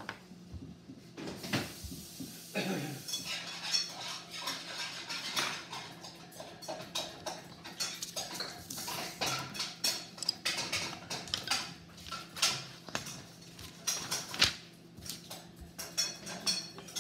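Dishes and utensils clinking and clattering in many short, irregular knocks, over a faint steady hum.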